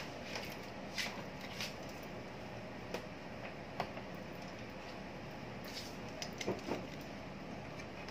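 A few light clicks and taps of hands handling the power-supply wires and connectors inside the open DVR, spaced irregularly over a steady low room hum.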